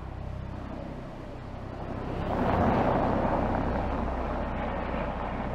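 BMW iX electric SUV driving past: tyre and road noise swells about two seconds in and fades slowly as the car moves away, over a steady low hum.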